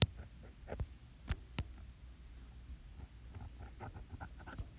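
Light taps and clicks of a stylus on a tablet's glass screen while drawing, a few sharp ones among fainter ticks, over a low steady room hum.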